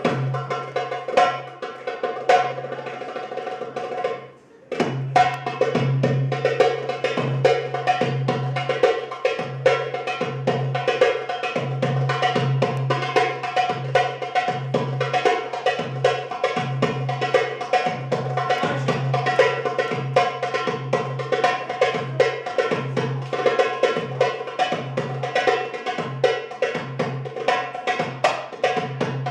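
Arabic tabla (goblet drum) playing a fast belly-dance drum solo: rapid rolls and sharp strokes over a steady sustained tone. The sound drops out briefly about four and a half seconds in, then the drumming resumes.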